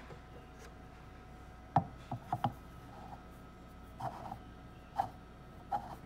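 Light knocks and taps from eggs being handled at a plastic incubator: the sharpest comes just before two seconds in, then a quick pair, then softer taps. Under them runs a steady hum.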